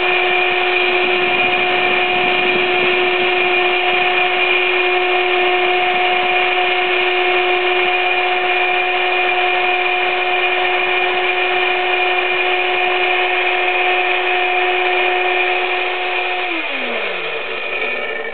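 Electric hand drill used as the motor of a homemade lathe, running at a steady high speed with a constant whine. About sixteen seconds in it is switched off and winds down, the pitch falling until it stops near the end.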